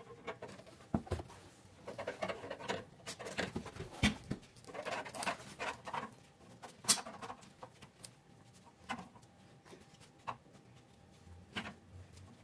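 Faint, scattered clicks, scrapes and rustles of hand work: a screwdriver levering between the steel leaves of a pickup's rear leaf spring pack while a gloved hand works a rubber pad in between them.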